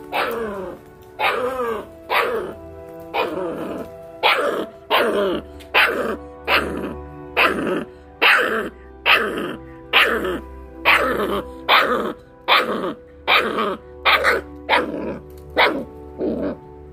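A small dog yapping over and over, about once a second, each yap falling in pitch, over steady background music.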